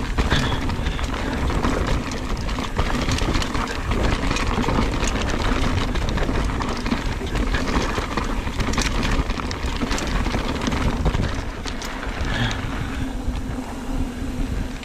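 Mountain bike riding a rough trail: tyres rolling and the bike rattling, with frequent sharp knocks, over steady rumbling wind noise on the camera microphone.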